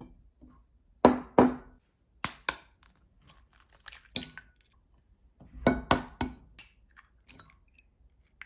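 Sharp knocks and clinks of a glass measuring cup and eggs on a wooden table: two loud knocks about a second in, then eggs tapped to crack them and opened into the glass cup past the middle.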